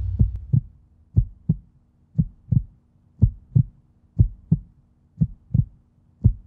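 Heartbeat sound effect: pairs of low thumps, lub-dub, about once a second, at a steady pace. A deep boom just before dies away in the first half second.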